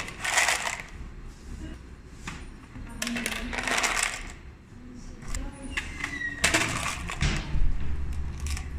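Metal coins, mostly 10-ruble pieces, jingling and sliding in a plastic coin tray as it is tipped and shaken. It comes in three bursts: near the start, about three seconds in, and again from about six and a half seconds.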